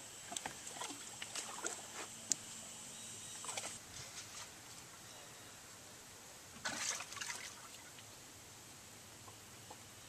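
Water sloshing and dribbling in a bass boat's livewell as a hand reaches in after a smallmouth bass, with light knocks in the first few seconds and a short burst of splashing about seven seconds in.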